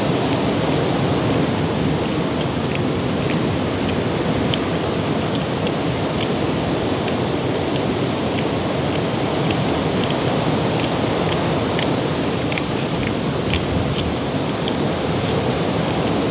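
A kitchen knife slicing through scallions held in the hand, making irregular crisp clicks about a couple of times a second, over a loud, steady rushing noise.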